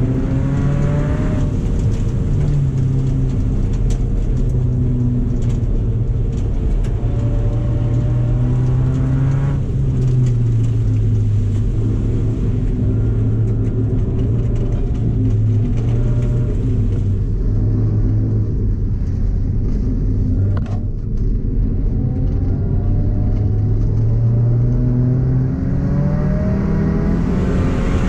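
A 2007 Subaru Impreza's flat-four engine running hard in an ice race, its revs rising and falling as the car accelerates and lifts.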